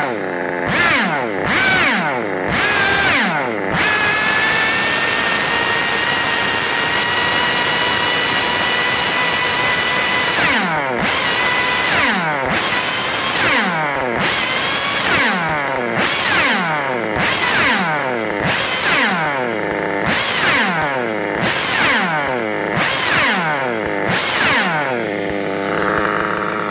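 Novarossi 28-7 .28 nitro engine being run in. It is blipped a few times, then held at a steady high rev for about six seconds, then blipped again and again about once a second, its high-pitched note rising and falling with each blip.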